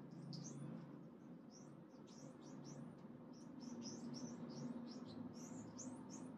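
A young golden-handed tamarin giving faint, rapid, high-pitched chirps, several a second, over a faint steady low hum.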